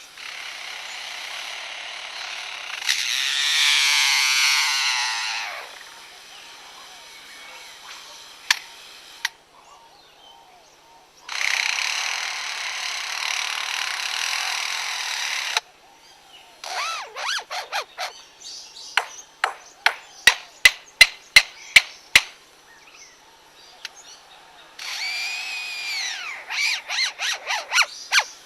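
Male superb lyrebird mimicking construction noise: stretches of steady power-tool-like whirring, a run of sharp hammer-like knocks at about three a second, and near the end a whine that rises and falls in pitch.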